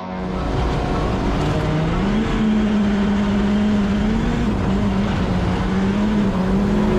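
A motor running at speed: a steady droning hum whose pitch rises over the first couple of seconds, then holds with slight wavers, over a broad rushing noise.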